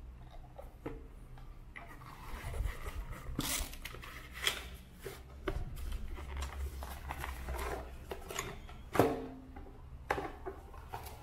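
Cardboard box flaps and tissue paper rustling as a chrome-plated wire rack of glass salt and pepper shakers is pulled out of its box, with several sharp clicks along the way. A single sharp knock about nine seconds in is the loudest sound, followed by another a second later.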